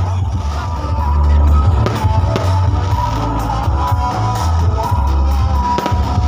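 Loud music with very heavy bass, played through a large 'horeg' parade sound system.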